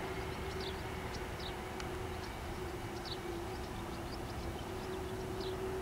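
Boeing 737-800's CFM56 jet engines at taxi idle: a steady hum with a held tone. Short high chirps from small birds come through over it now and then.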